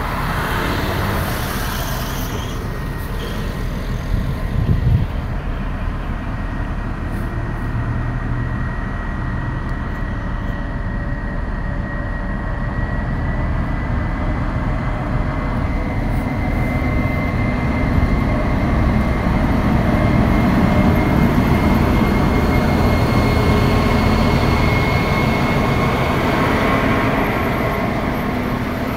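ČD class 754 diesel locomotive running as it brings a passenger train along the platform. A thin high whine sits steadily over the engine noise, which grows somewhat louder in the second half as the locomotive comes alongside.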